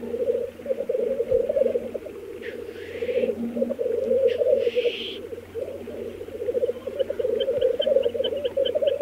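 Male black grouse at a lek giving their bubbling, cooing display song in long overlapping phrases, with two hissing 'sneeze' calls about two and a half and four and a half seconds in. From about seven seconds a fast run of high ticks, about five a second, joins in.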